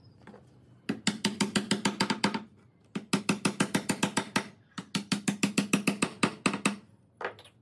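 Hammer tapping rapidly on a wooden baluster and curved handrail, in three quick runs of about eight blows a second, with one lone knock near the end.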